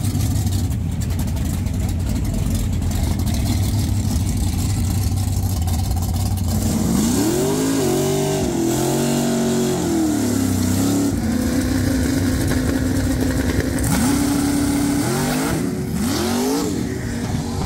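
OBS pickup drag truck's engine running loud and steady, then revving up and down repeatedly through a burnout, held high for a couple of seconds, and revving again in quick rises as the truck leaves the line with its tires spinning and smoking.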